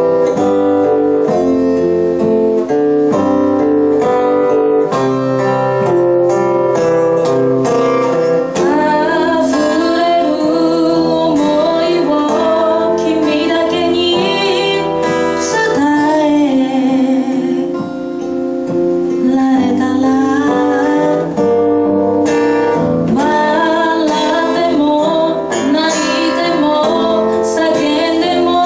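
Live acoustic guitar playing chords, joined about eight seconds in by a woman singing a pop or blues song into a microphone.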